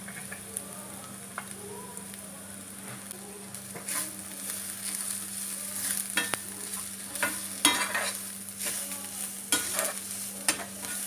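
Chopped onion and spice powders sizzling in hot oil in a pan while a flat metal spatula stirs them, with irregular scrapes of the spatula against the pan, more frequent from about four seconds in. This is the masala being fried with the onion and garlic.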